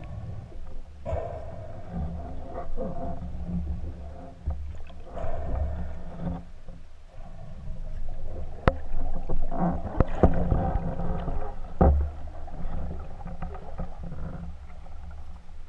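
Underwater noise picked up by a submerged action camera as a spearfisher swims and dives: a low, uneven rumble of water with muffled knocks. A few sharp clicks come in the second half.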